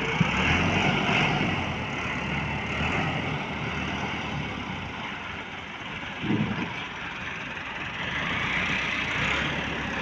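Tractor engine running steadily as a front loader lifts straw bales, with a short louder burst about six seconds in.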